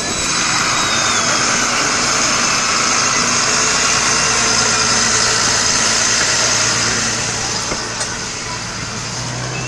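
Motor traffic on the adjacent road, engines running steadily, with a faint falling whine in the first second or so. It eases slightly near the end.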